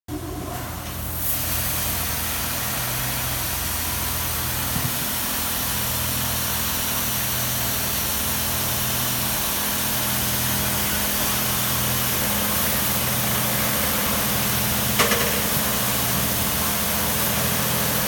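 Tunnel car wash spraying a car: a steady high-pressure water-spray hiss that sets in about a second in, over a low, evenly pulsing machinery hum, with a sharp knock about 15 seconds in.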